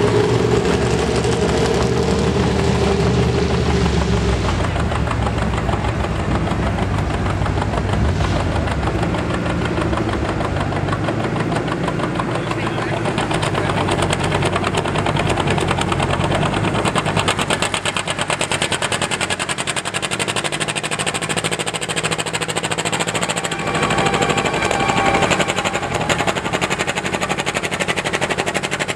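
Antique John Deere tractor engine working hard under load as it pulls the sled, with a rapid, steady exhaust beat. Its pitch shifts a few times as the load changes.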